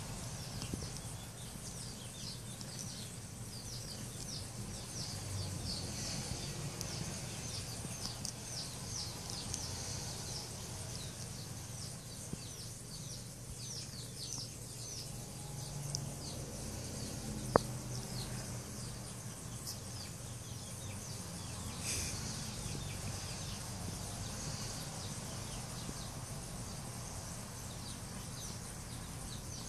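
Small birds chirping rapidly in quick downward notes, busiest in the first half, over a steady low hum. A single sharp click about 17 seconds in.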